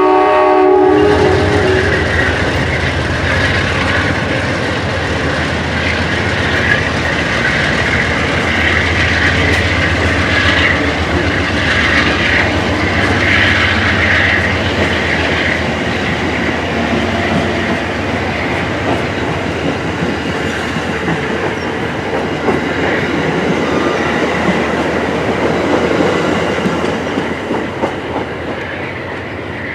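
Amtrak passenger train led by a GE P42DC diesel locomotive rolling past. Its horn chord cuts off about a second in, then comes the steady rumble of the engine and the clickety-clack of wheels over rail joints. The sound fades toward the end.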